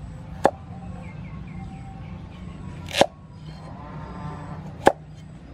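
Cleaver chopping carrot on a thick round wooden chopping block: three sharp knocks of the blade through the carrot into the wood, about two seconds apart.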